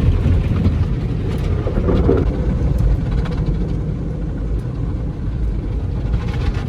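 Automatic car wash machinery running around the car, heard from inside the cabin as a steady low rumble and wash.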